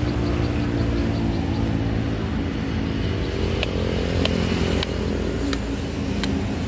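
A small engine runs steadily, its pitch rising a little in the middle and dropping just before the fifth second. Over it come about five sharp chops of a large knife hacking into the fibrous husk of sugar palm (palmyra) fruit, starting about three and a half seconds in.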